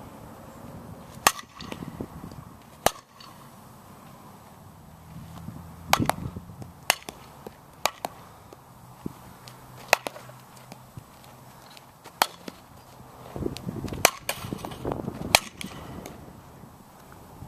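Softball bat striking softballs, about nine sharp cracks of contact spaced one to three seconds apart.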